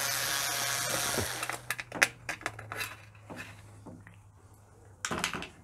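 A cordless power screwdriver runs steadily, backing out the Torx screws on the dishwasher's bottom panel, then winds down with a falling whine and stops about a second in. After that come a few light clicks and taps of screws and the metal panel being handled, and a short scrape near the end.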